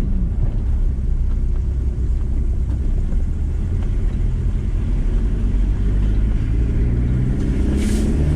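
VW T4 campervan on the move, its engine and road noise making a steady low rumble. The engine note becomes more distinct in the last few seconds.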